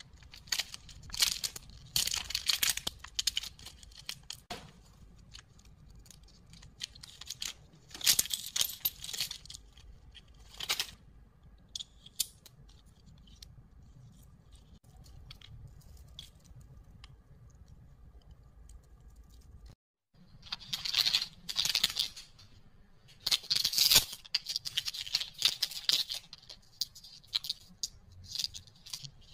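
Plastic candy wrappers crinkling and tearing open in hand, in several bursts, with a quieter stretch of handling noise around the middle.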